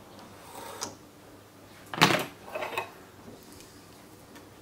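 Handling noises: a sharp knock about two seconds in, then a few lighter clicks and rustles.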